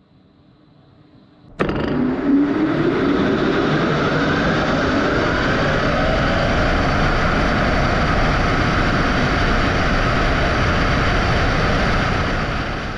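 Metal lathe running at high speed with a camera spinning in its chuck: a loud whirring rush that starts abruptly about one and a half seconds in, with a whine rising in pitch over the next few seconds, then holds steady.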